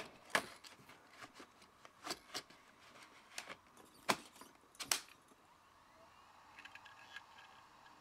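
Several sharp clicks over the first few seconds, then, about two-thirds of the way in, the faint high whine of an IBM Travelstar 10 GB laptop hard drive spinning up in its caddy as it is powered on.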